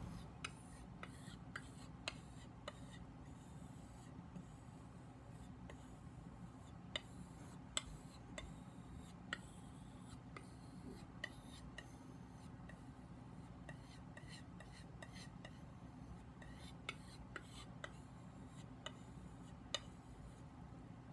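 Faint rubbing and light, irregular clicks of a Global vegetable knife stroked along a hand-held 4-micron strop to clean up the edge and remove the burr, over a steady low hum.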